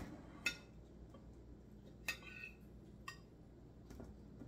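A few light clinks and taps of utensils against dishes, about four in all, one of them ringing briefly.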